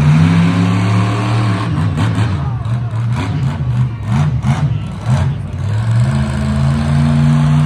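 Monster truck engine revving hard as the truck drives across the dirt arena. The pitch climbs at the start and again about six seconds in, with a choppy stretch of short throttle surges in between.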